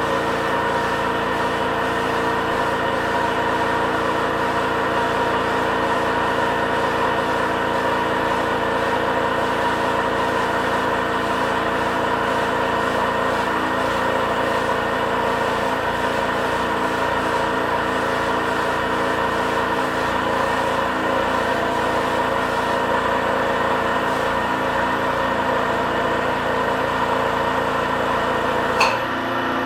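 Homemade tankless air compressor running steadily, a continuous mechanical hum made of many steady tones. Near the end there is a sharp click and the sound changes.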